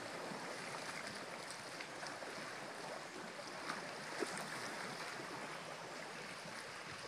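Steady wash of small lake waves lapping against the shore, with two faint knocks a little past the middle.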